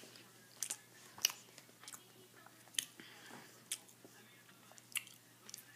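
A sandwich being chewed close to the microphone: quiet chewing with irregular sharp wet mouth clicks and smacks, about one every second.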